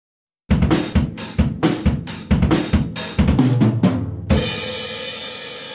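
Intro music: a drum-kit beat with bass drum, snare and cymbals, hits coming about twice a second, ending about four seconds in on a final hit that rings on and slowly fades.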